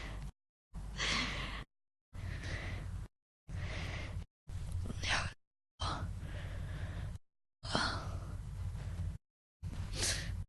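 A person breathing and sighing in a string of short, separate breaths, about eight of them. Each lasts roughly a second and is cut off sharply by a brief gap of complete silence, as if spliced together. A low hum sits under each breath.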